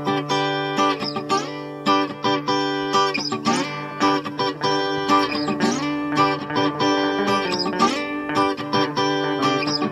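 Instrumental opening of a pop song: a guitar strumming chords in repeated strokes over a held low bass note, with no singing yet.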